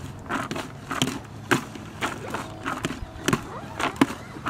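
A bucket of wet maize-and-groundbait spod mix being stirred, with irregular scraping, crunching strokes about two a second.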